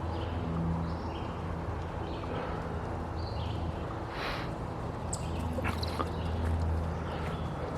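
Footsteps walking along a dirt trail in a steady stride, with short high calls now and then.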